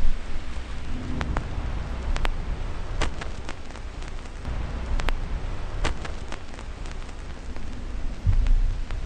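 Steady hiss with scattered sharp clicks and deep rumbles about at the start and again near the end, a rain-and-thunder-like ambience.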